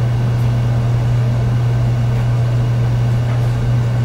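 A steady, loud low hum at one unchanging pitch.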